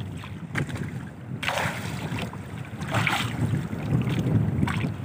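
Wind buffeting the microphone and sea water sloshing against a wooden outrigger boat's hull, with a few brief swishes about one and a half and three seconds in as a fishing handline is pulled in hand over hand.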